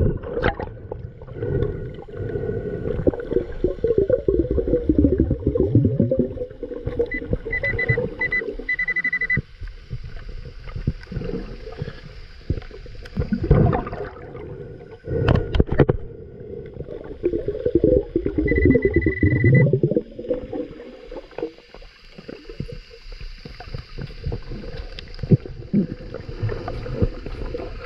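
Underwater sound from a camera below the sea surface: churning water and bubbling as a snorkeler swims and sweeps a metal detector over sand, with a couple of dull knocks past the middle. Two short runs of high pulsing beeps, about a third of the way in and again past the middle.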